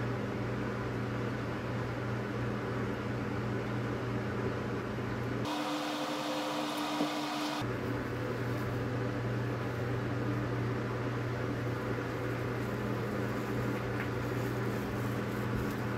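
A steady machine hum with an even hiss, like a fan running. About five seconds in, the low hum drops out for roughly two seconds and a higher steady tone takes its place, then the hum returns.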